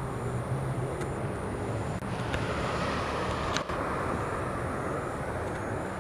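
Road traffic noise, with a vehicle passing about halfway through.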